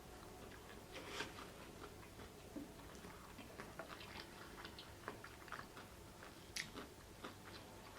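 Close-up chewing of food in the mouth: faint, irregular small wet clicks and smacks, with a louder one about a second in and another near the end.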